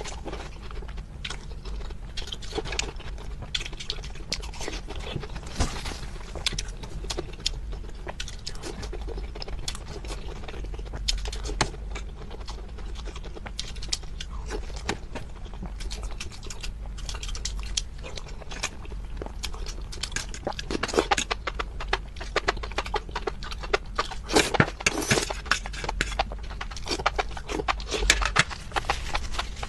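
Close-miked chewing: a dense run of quick clicks and crackles, growing busier and louder in the last third.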